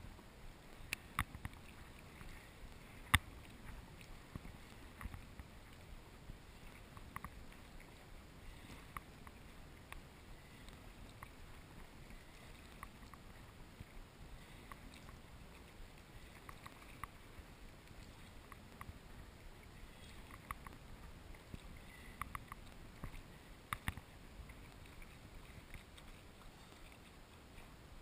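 Sea kayak being paddled through choppy water: a faint steady wash of water along the hull, broken by irregular sharp slaps and knocks of paddle and waves. The loudest slap comes about three seconds in, and another near the end.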